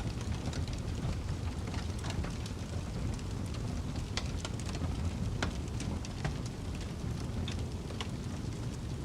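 Wood fire in a fireplace crackling, with irregular sharp pops, over a steady low rumble of snowstorm wind.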